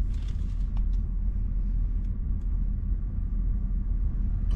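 Steady low rumble inside a Toyota 4Runner's cabin from the idling engine, with a few faint light clicks.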